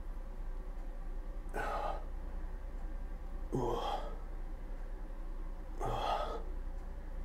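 A man breathing out hard three times, about two seconds apart, while straining to hold a tensed biceps flex, over a steady low hum.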